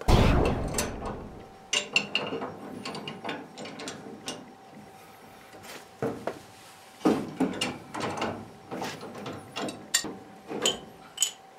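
Pipe wrench and adjustable wrench working black iron gas pipe fittings loose: scattered metallic clicks and knocks as the jaws grip, slip and are reset on the pipe. There is a heavier thud at the very start and a faint steady hum underneath.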